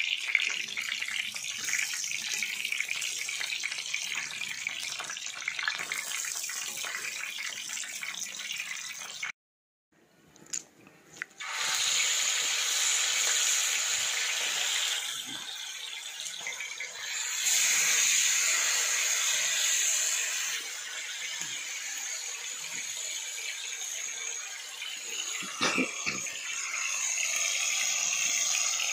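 Fish steaks deep-frying in hot oil in a wide iron kadai, a steady sizzle. It cuts out briefly about a third of the way in, comes back louder and grows louder again a little past halfway, with a couple of short knocks near the end.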